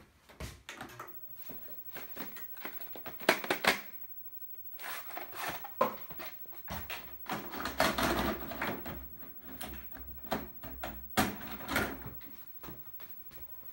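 Hands working a VHS video recorder and a small CRT television: a string of plastic clicks, clunks and rattles from buttons and handling, with a brief lull about four seconds in.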